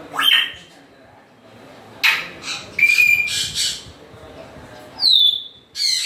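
African grey parrot calling: a rising whistle at the start, harsh squawks about two seconds in and again around three and a half seconds, a short steady whistle in between, and a high falling whistle near the end.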